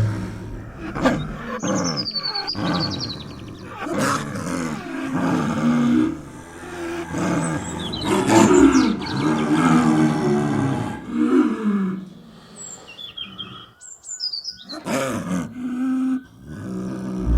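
Snow leopard calling: a run of drawn-out cries whose pitch bends up and down, with short breaks between them. Birds chirp now and then above the calls.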